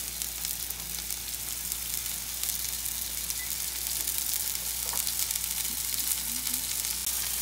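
Prosciutto-wrapped chicken frying in a hot cast iron skillet: a steady sizzle with fine crackling.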